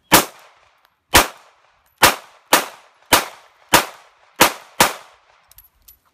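Glock 17 9mm pistol fired eight times at an uneven pace over about five seconds. Each shot is a sharp crack with a short ring-out, and two pairs come in quick succession.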